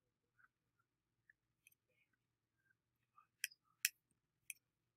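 A few sharp clicks of a computer mouse button, the two loudest close together about three and a half seconds in and one more half a second later, with a few faint small ticks before them.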